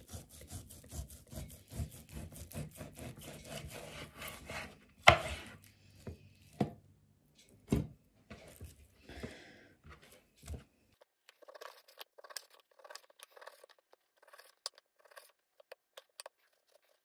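A large kitchen knife cutting through a raw beef joint on a chopping board: quick sawing strokes through the meat, then a sharp knock of the blade on the board about five seconds in and a few more single knocks, followed by faint light clicks.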